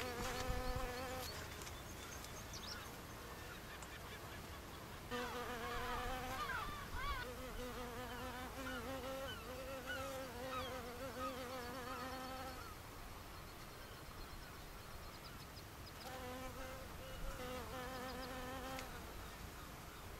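Willughby's leafcutter bee (Megachile willughbiella) buzzing in flight: a low wing hum with a slightly wavering pitch, in three bouts, briefly at the start, a long one through the middle and a shorter one near the end.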